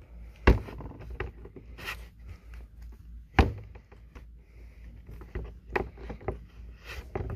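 Action figure handled and set down on a tabletop: scattered light taps and clicks of its plastic limbs and rubber-sandalled feet, with two sharper knocks, one about half a second in and one about three and a half seconds in.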